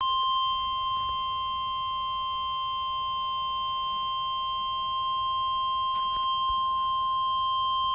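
Emergency Alert System attention tone for a severe thunderstorm warning: the single steady 1050 Hz warning alarm tone of a NOAA Weather Radio broadcast, held unbroken and cutting off sharply near the end.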